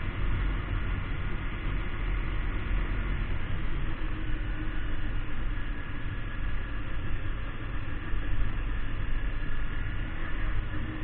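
Kawasaki Ninja 250 parallel-twin motorcycle riding along at speed: a steady engine drone under heavy wind rush and rumble on the bike-mounted microphone.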